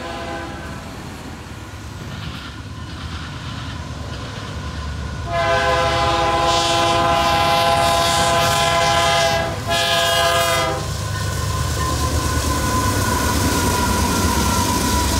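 Canadian Pacific GE AC4400CW diesel freight locomotive sounding its air horn at a grade crossing: a long chord blast about five seconds in, a brief break, then a short blast. Afterwards the locomotive's diesel rumble grows louder as it passes.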